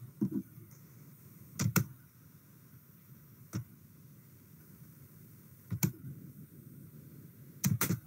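Quiet room noise broken by about five short clicks and knocks, a second or two apart.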